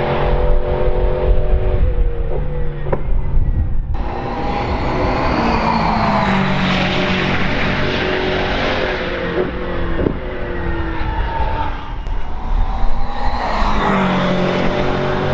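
McLaren 720S GT3 Evo race car's twin-turbo V8 running hard through corners, its pitch stepping down and climbing again with braking and gear changes. A few sharp cracks cut through it.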